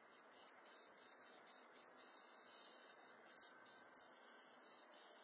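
Faint, high-pitched chorus of insects pulsing on and off in quick, irregular bursts, over a low background hiss.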